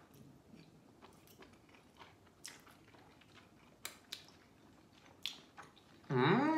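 People chewing mouthfuls of soft noodles, with faint, scattered wet mouth clicks and smacks. Near the end, a voice comes in.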